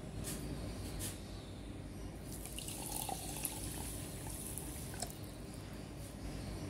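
Water poured from a glass into a bowl, splashing onto basil seeds and sugar, from about two seconds in until about five seconds in. A couple of light clicks come in the first second.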